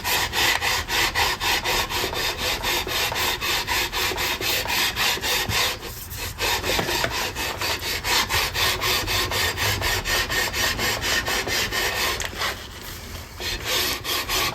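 Quick, even back-and-forth sanding strokes along a rosewood guitar fretboard as it is levelled to take down the high spots. There is a short break about six seconds in and another of about a second near the end.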